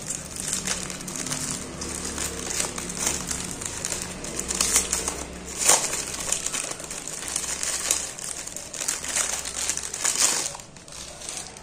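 Thin clear plastic wrapper crinkling and crackling as hands pull it off a new wallet. The crackling is loudest around the middle and dies away about a second before the end.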